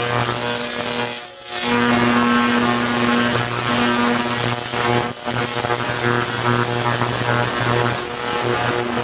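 Handheld laser cleaner buzzing steadily with a hum as it ablates carbon deposits from an aluminium cylinder head. The buzz cuts out briefly twice, a little over a second in and about five seconds in.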